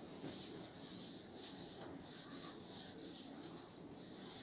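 Faint steady rubbing on a chalkboard in quick repeated strokes.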